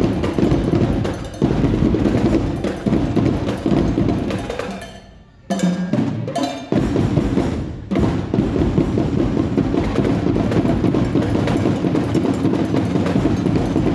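Loud, drum-heavy music accompanying a dance routine. It dies away about four to five seconds in, comes back suddenly with a sharp hit, and then drives on steadily.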